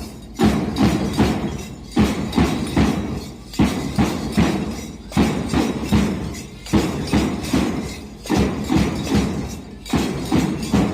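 Music driven by a steady percussive beat, with a strong hit a little under once a second over a sustained pitched background.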